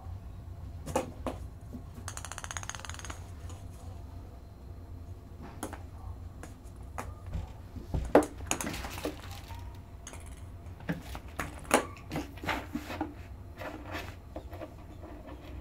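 A ping pong ball clicking and bouncing against a metal door kick plate and hard floor as a cat bats at it, with knocks of paws striking the metal plate, the loudest about eight seconds in. A fast run of light ticks comes about two seconds in, and a steady low hum sits underneath.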